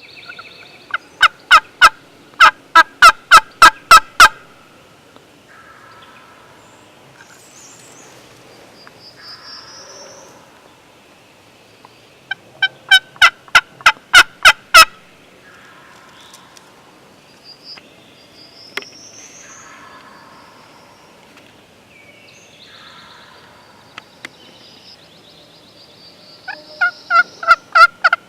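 Wild turkey calling: three runs of loud, evenly spaced notes, about four a second, each run building in loudness, with faint songbirds chirping between the runs.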